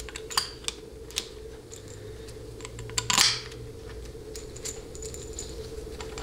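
Loose metal bolts clinking together and against a 700R4 transmission valve body as they are handled and set in place by hand: a few sharp separate clicks, with a louder cluster of clinks about three seconds in. A steady hum runs underneath.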